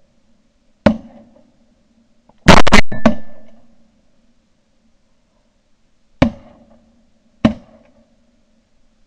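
Shotguns firing at close range, several shots from more than one gun: one about a second in, two loud ones in quick succession around two and a half seconds, and two more about a second apart near the end.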